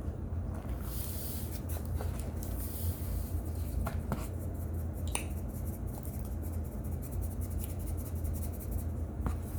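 A few sharp crunches and snaps from baked cornstarch chunks being bitten or broken, spaced a second or more apart over a steady low hum.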